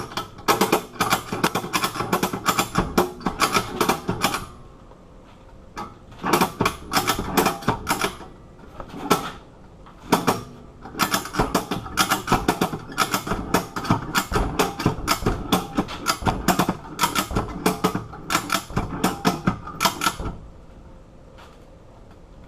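Ratchet strap being cranked tight, its ratchet clicking rapidly at about five clicks a second in several long runs with short pauses between. The strap is drawing bolt cutter handles closed on a padlock, building up cutting force.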